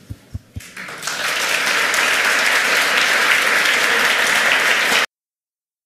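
Audience applause: a few scattered claps, then full applause from about a second in, cut off abruptly near the end.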